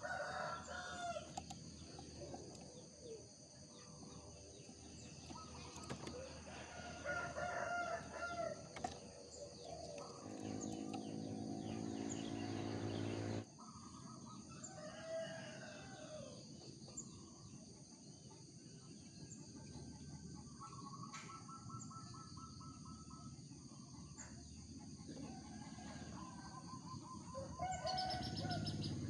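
Zebra doves (perkutut) cooing in short repeated phrases, with a quick trilled call a little past the middle. A longer, lower call runs from about ten seconds in and cuts off suddenly.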